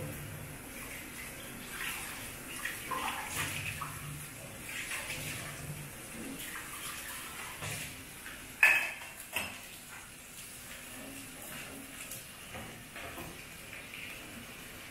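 Kitchen work at a counter: running water with pots and utensils clinking now and then, and one sharp clank a little past the middle.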